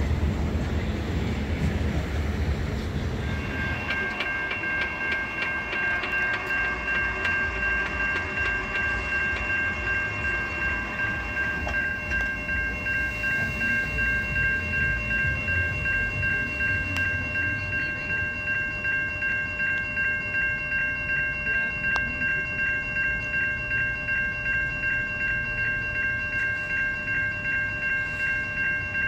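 Railroad crossing warning bell ringing in steady, regular strokes. A passing train's rumble is loud for the first few seconds, then drops to a lower running noise under the bell.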